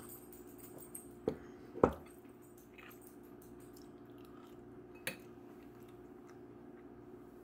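Tableware knocking and clinking: two knocks just over a second in, the second one the loudest, and a smaller clink about five seconds in, as a glass mug is set down and a fork is worked on a plate. A steady low hum runs underneath.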